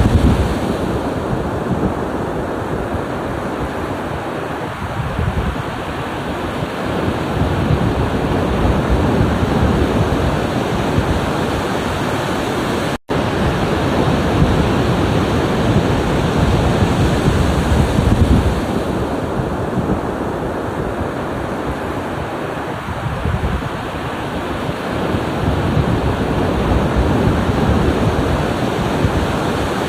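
Ocean waves washing onto the shore: a continuous surf wash that swells and eases. The sound cuts out for an instant about 13 seconds in.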